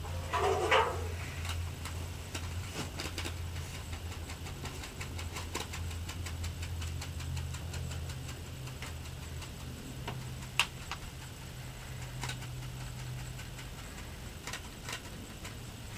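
A steady low motor-like hum, with many faint light ticks and taps as seeds are sown by hand into soil, and one sharper click about ten and a half seconds in.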